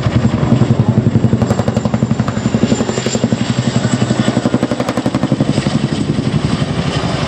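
Chinook tandem-rotor helicopter flying past, its rotor blades beating in a rapid, even pulse over a heavy engine and rotor noise.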